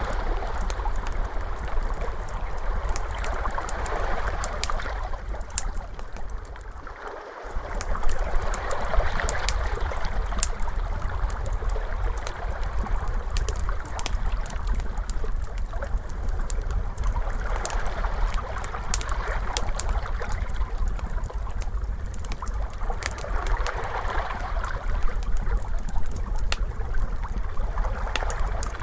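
Ocean waves washing in and out, swelling every few seconds, with a wood fire crackling and popping over them. The sound dips briefly about seven seconds in.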